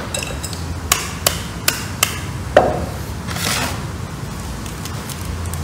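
Sharp knocks and clinks from dishes being handled, five within about two seconds, followed by a brief hiss, over a steady low hum.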